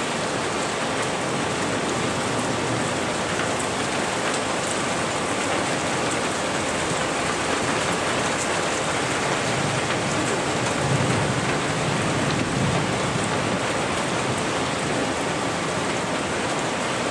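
Heavy rain falling steadily in a thunderstorm, with a low rumble of distant thunder about two-thirds of the way through.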